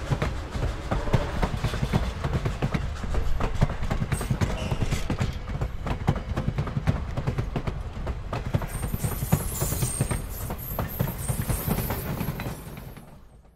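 Railroad passenger coaches rolling past, their wheels clicking and knocking over the rail joints above a low rumble. The sound fades away near the end.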